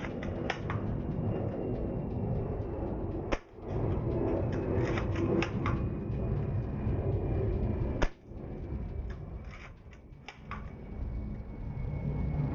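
Echo 1 M28 airsoft sniper rifle fired three times through a chronograph, one sharp snap about every four and a half seconds, with clusters of smaller clicks between the shots. The shots chronograph at about 480 to 488 fps.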